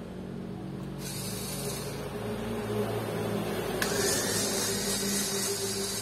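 Small cordless electric screwdriver whirring as it drives screws out of a netbook's bottom case, with a sharp click about four seconds in.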